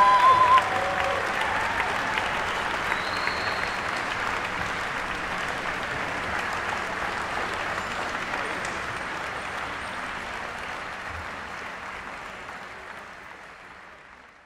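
Concert audience applauding, the clapping fading out gradually; a held high note cuts off about half a second in.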